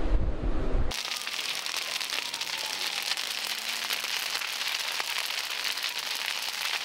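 Wind buffeting the microphone for about a second, then a sudden change to a burning house crackling, with dense popping and snapping over a steady hiss.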